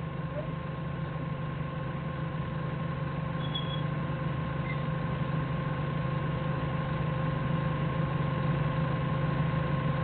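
Diesel forklift engine idling steadily, growing slowly a little louder.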